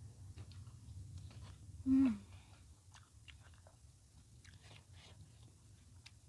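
A person chewing a mouthful of food close to the microphone, with soft wet mouth clicks, and a short falling hum about two seconds in.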